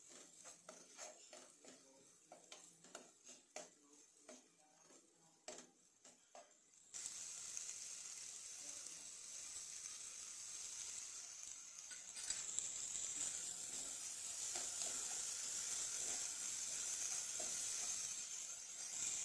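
A steel spoon scraping and tapping against a nonstick pan while stirring diced potatoes, then a steady sizzle of the potato mixture frying in oil that starts suddenly about seven seconds in and grows louder about five seconds later.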